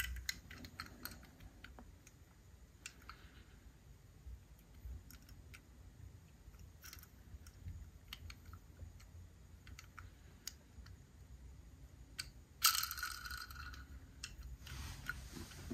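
Faint scattered clicks and taps of a small toy car being handled and turned over in the fingers, with a brief louder rustle late on.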